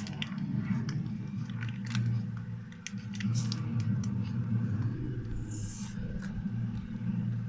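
Slime being mixed in a container after the activator goes in: scattered wet clicks and scrapes over a steady low hum, with a short hiss a little past halfway.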